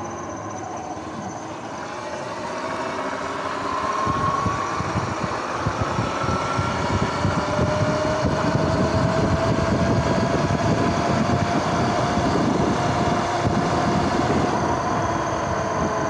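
Sur-Ron X electric dirt bike's motor and drivetrain whining, the whine rising in pitch as the bike picks up speed. Wind and road noise over the rider-mounted camera grow louder about four seconds in.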